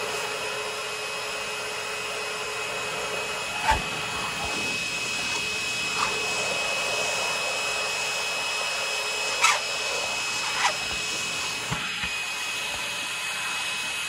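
Shop vacuum running steadily with a high motor whine, drawing through a hose at a hand scraper, with several short sharp scrapes or knocks as old paint is scraped from a wood window frame.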